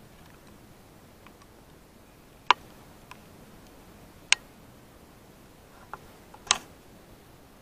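A few sharp clicks or snaps against a quiet background, three louder ones about two seconds apart and some fainter ticks between them.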